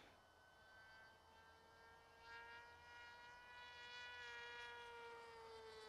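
Brushless electric motor and propeller of a flying wing, a SunnySky motor, whining faintly and steadily in flight as heard from the onboard camera; the pitch sags slightly near the end. The motor is failing: the owner found it burnt out after it lost power.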